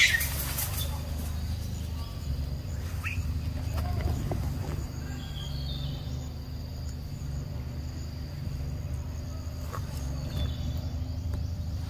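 Forest ambience: faint insect trilling and an occasional short bird chirp over a steady low rumble.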